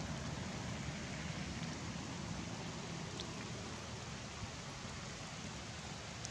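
Steady, even hiss of outdoor background noise, with a few faint ticks.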